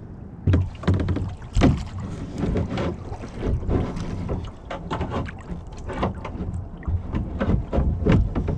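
Sounds of a kayak on the water: irregular knocks and splashes as the paddle and gear bump the plastic hull and dip in the water, with wind rumbling on the microphone.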